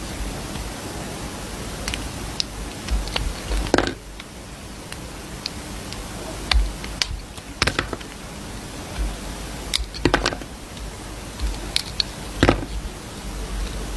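Dry soap being cut, crackling with irregular crisp snaps and clicks, a few louder cracks among them, over a steady hiss.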